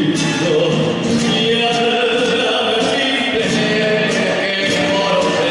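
A song playing, with singing voices over instruments and a steady beat: Argentine folk music.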